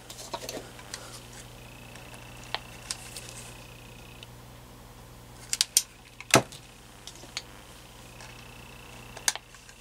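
Plastic clicks and knocks of a cordless phone handset being handled, its battery compartment opened and closed and its keys pressed, with one louder knock partway through. A faint steady high tone sounds twice, each time for two to three seconds.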